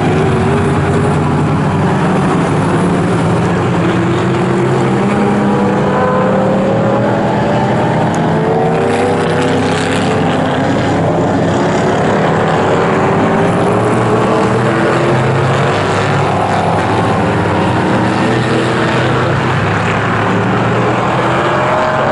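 Several classic 1960s GT race car engines running hard on the circuit, one after another overlapping, each climbing in pitch as it accelerates out of the corner.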